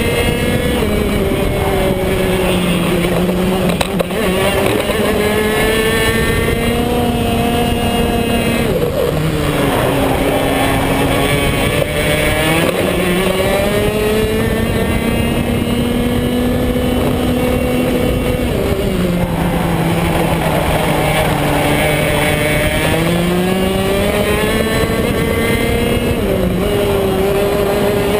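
BMB KF2 125 cc two-stroke kart engine running flat out at racing speed, heard from a camera mounted on the kart. Its pitch rises on each straight and drops as it slows into the corners, several times over.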